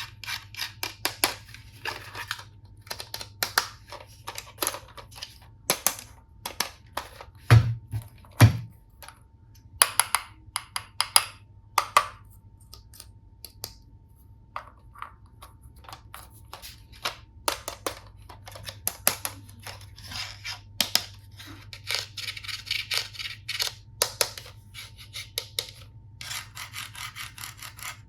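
Plastic toy tool pieces being handled and set down: irregular light clicks and clatter, with two heavier thumps about eight seconds in and stretches of rustling in between.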